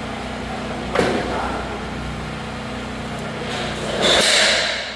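Steady mechanical hum, with a sharp knock about a second in and a loud hiss lasting about a second, about four seconds in.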